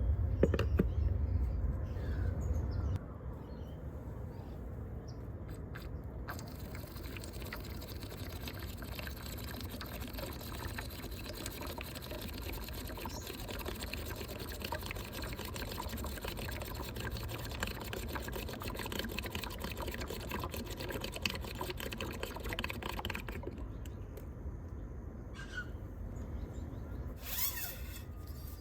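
Engine oil pouring in a steady stream, starting about six seconds in and stopping abruptly about seventeen seconds later. A low rumble comes before it, in the first three seconds.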